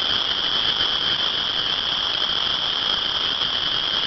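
A dense chorus of frogs calling all at once, merging into one continuous, steady, high-pitched shrill that is deafening.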